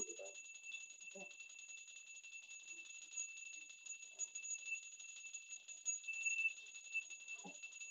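Small bell rung rapidly and without a break, a faint steady ringing. Quiet voices and movement sound faintly underneath.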